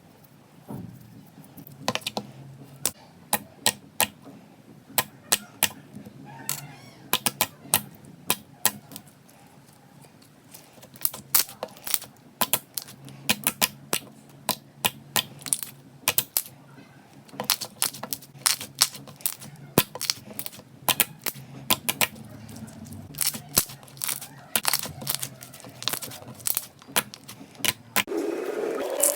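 Slime being squeezed and pressed by hand, giving an irregular run of sharp pops and clicks, some in quick clusters.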